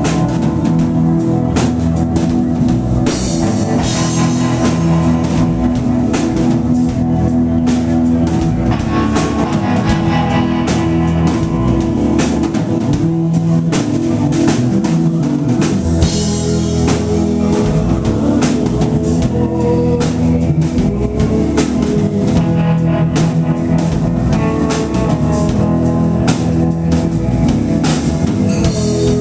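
Live rock band playing at full volume: electric guitar, electric bass, keyboards and drum kit, with steady drum hits driving the beat. The vocals are hard to hear under the instruments.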